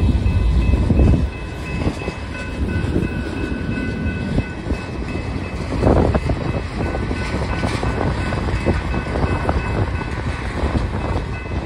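Freight train cars rolling past: a steady low rumble with the wheels clicking over rail joints, and a louder clank about six seconds in.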